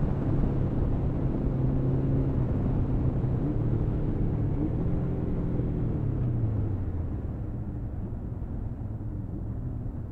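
Motorcycle engine pulling under throttle while riding, its note climbing in steps, then dropping away about six seconds in as the throttle comes off. Steady wind and road noise runs under it.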